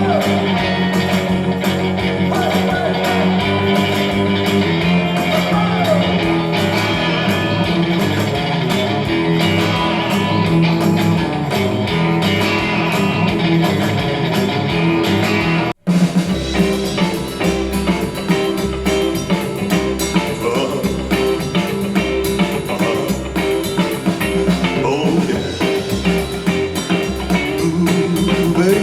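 Music played back through a Grundig Minerva Mini-Box MB 5030 HiFi loudspeaker for a listening test: a song with guitar and drums that cuts off abruptly about sixteen seconds in, then a different track with a heavy, pulsing bass beat.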